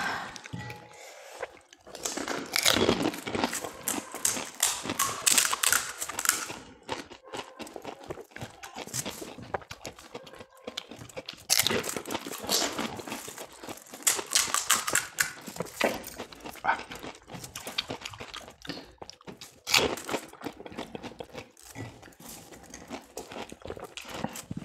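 Crisp fried panipuri shells cracking and crunching as they are poked open and bitten, with chewing; the crackles come in dense clusters, heaviest a couple of seconds in and again about halfway through.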